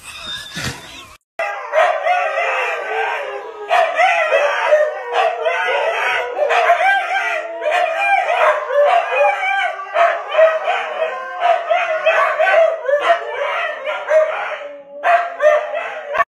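Several huskies howling together in an overlapping chorus of long, wavering howls, joined by a man's imitation howl. It starts about a second in.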